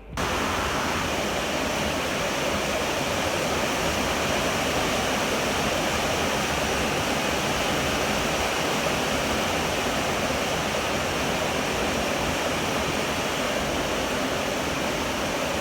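Heavy rain pouring down steadily, an even hiss that cuts in abruptly at the start.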